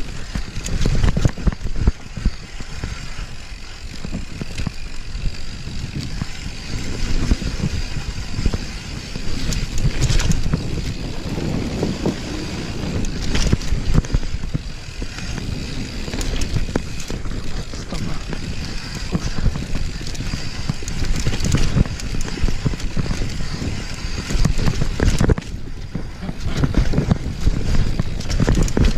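Downhill mountain bike descending a rough trail, heard from a bike- or helmet-mounted POV camera: steady tyre rumble over the dirt, with frequent knocks and rattles from the bike over bumps.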